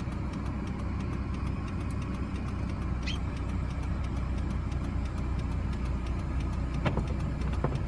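Steady car engine and road rumble heard from inside the moving vehicle, with a single short high chirp about three seconds in.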